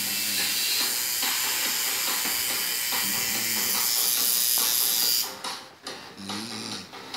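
A steady, loud hiss with a faint low electric buzz that comes and goes underneath, from a tattoo machine working on the skin. About five seconds in, the hiss drops away and cuts in and out.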